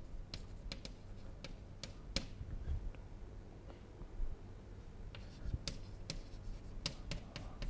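Chalk writing on a chalkboard: a scatter of sharp taps and short scratches as letters are written, thinning out in the middle and picking up again after about five seconds, over a low room hum.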